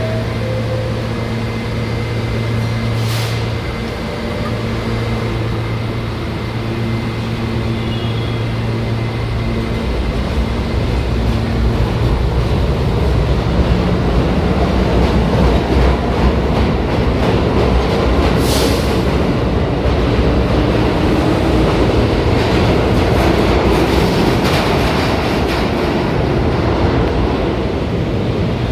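New York City subway train at a station platform: a steady low hum, then from about ten seconds in the rumble and clatter of the train moving past grows loud and holds until near the end. Two brief sharp high sounds come about three seconds and eighteen seconds in.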